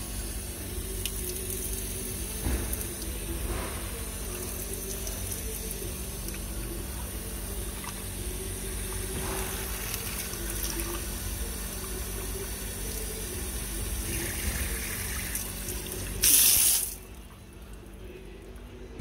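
Water running steadily from a tap and splashing onto a wet concrete floor. Near the end there is a short, loud rush of noise, and after it the running water is much fainter.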